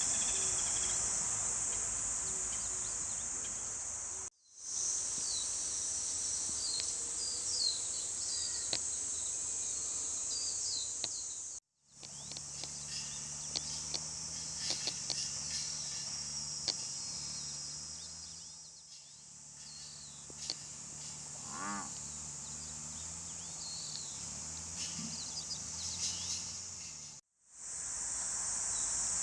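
A dense chorus of cicadas gives a steady high-pitched drone, cut off briefly three times at edits. In the middle part a low steady hum runs underneath it.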